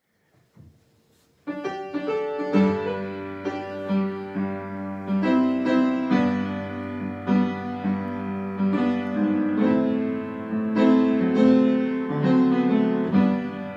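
Piano playing the introduction to a song, chords and melody notes coming in about a second and a half in after a near-silent start.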